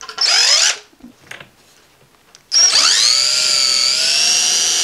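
Power drill running in two bursts while flat-pack furniture is assembled. First a short whir, then about two and a half seconds in a longer run that spins up in pitch and holds steady.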